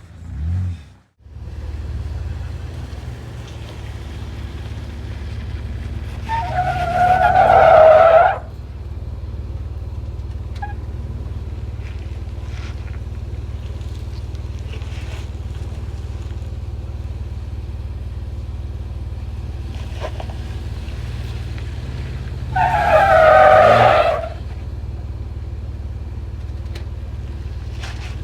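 An off-road 4x4's engine runs steadily at low speed, broken twice, about six seconds in and again about twenty-three seconds in, by a loud squeal lasting about two seconds.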